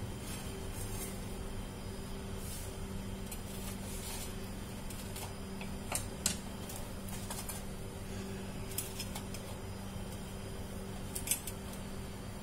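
A steady low hum throughout, with a few light clicks and taps scattered through it, the sharpest a little after six seconds and again past eleven seconds.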